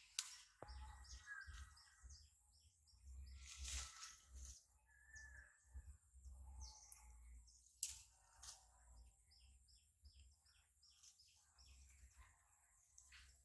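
Faint birdsong: small birds chirping in quick, repeated short notes, with a few sharp crackles of leaves and twigs.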